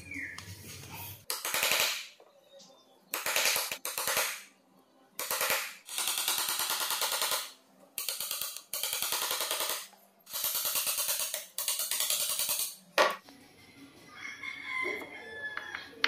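Wood chisel cutting into a wooden door jamb to recess a door-knob strike plate: about nine strokes, each a fast run of sharp scraping clicks lasting around a second, with the sound going quieter near the end.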